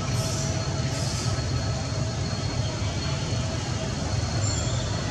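Steady low rumbling background noise with an even hiss over it, and two brief high hissing bursts about a second apart near the start.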